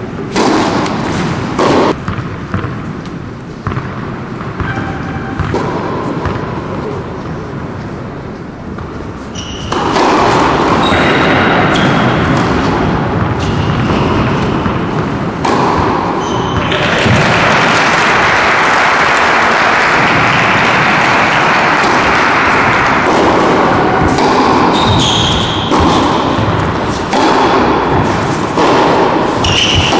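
Tennis ball bouncing on an indoor hard court and struck by racquets, in a series of sharp knocks, over a background of voices that grows much louder about ten seconds in.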